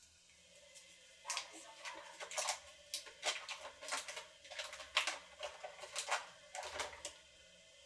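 Paper wrapper crinkling and rustling in irregular bursts as a stick of butter is peeled open and broken up by hand. It starts about a second in and stops just before the end.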